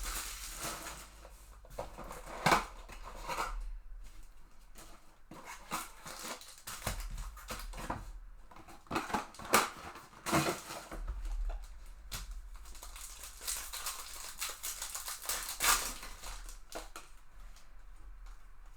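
Trading-card packaging being opened: irregular crinkling, tearing and crackling of a card box and its foil pack wrappers, loudest in several short clusters.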